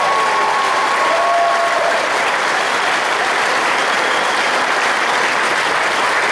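Crowd applauding steadily, with a held shout over it in the first two seconds.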